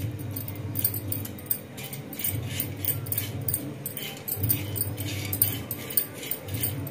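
Whole spices (cardamom pods, fennel seeds, cinnamon sticks and cloves) being turned by hand on a flat pan while dry-roasting on a low flame, the small hard pods and seeds clicking and rattling against the pan in quick irregular ticks over a low hum.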